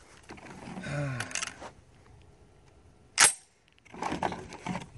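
Shotgun shells and a semi-auto shotgun handled at a metal truck tailgate: a few light clicks, then one sharp metallic clack a little after three seconds in, followed by more rustling and clicking.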